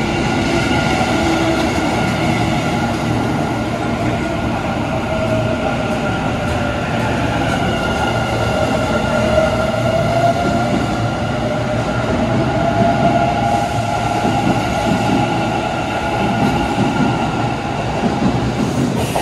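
Kintetsu 50000 series Shimakaze limited express pulling out of an underground station. Its electric traction motors give a whine that rises in pitch as it gathers speed, over the steady rumble of the cars rolling past.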